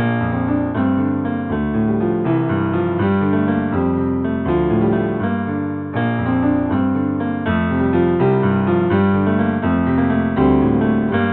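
Instrumental piano music: chords and melody notes struck and left to ring over changing bass notes, at a steady, even loudness.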